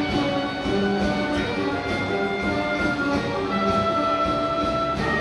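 Live orchestral music with brass playing an instrumental passage, with a long held note near the end.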